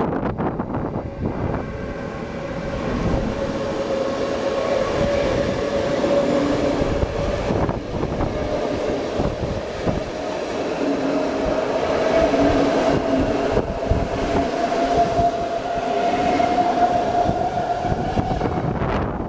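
Passenger train hauled by a Siemens Vectron electric locomotive passing close alongside on the next track. The locomotive goes by at the start, then a long rake of coaches rushes past with a continuous rumble and rattle of wheels on rail. A steady tone runs through it, rising slightly in pitch toward the end.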